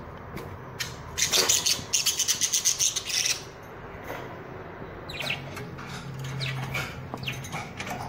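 Pet budgerigars chirping and chattering, with a loud, rapid flurry from about one to three seconds in, then quieter scattered chirps. A low steady hum sits underneath in the second half.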